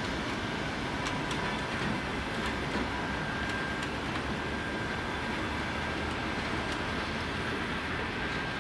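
Russian Railways passenger coaches rolling past along the platform: a steady rumble of wheels on rail, with a few sharp clicks in the first seconds and a faint high steady tone above it.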